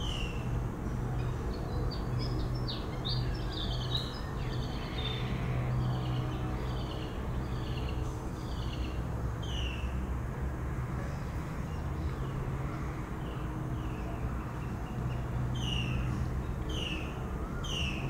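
A shorebird calling repeatedly with short, sharp notes that fall in pitch, one or two a second. The calls come in two runs with a pause between them, over a steady low rumble.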